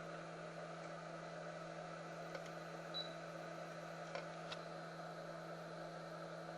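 Small electric motor humming steadily over an airy hiss, with a few faint light clicks; the hum drops away at the very end.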